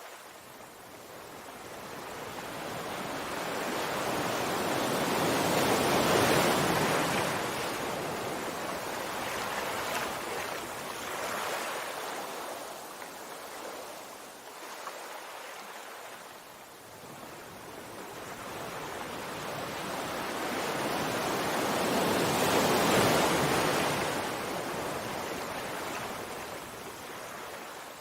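Sea waves washing ashore: two slow swells of surf, each building over several seconds to a peak and then fading, with a softer wash between them.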